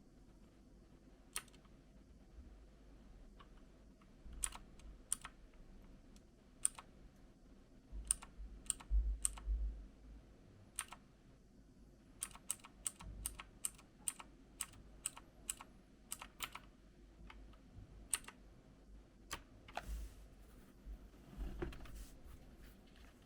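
Key presses on a Rampage KB-R97 X Tracer mechanical keyboard with clicky blue switches. Single, scattered keystrokes at first, then a quicker run of presses in the middle, with a few dull low thumps.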